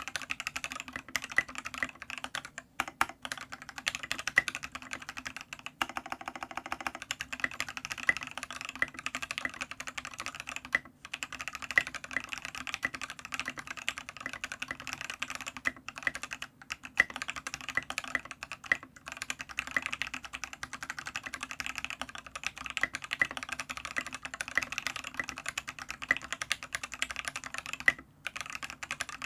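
Continuous typing on a Matrix Noah 65% keyboard with an aluminium plate, lubed C³Equalz Tangerine linear switches and KAT Milkshake keycaps, sitting on the bare desk without a deskpad. It is a steady stream of key clacks with a few short pauses.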